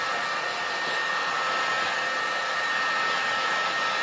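Electric heat gun blowing steadily, a rushing of hot air with a steady fan whine on top, shrinking heat-shrink tubing onto a motorcycle mirror.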